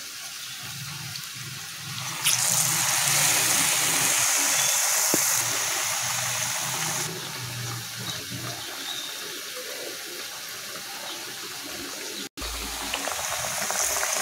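Hot oil sizzling steadily as batter-coated banana fritters deep-fry, growing louder about two seconds in. The sound cuts out for an instant near the end.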